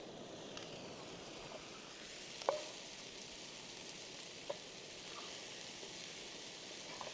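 Vegetable spread of tomatoes, onions, greens and corn frying in oil, a faint steady sizzle with a few sharp clicks, the loudest about two and a half seconds in.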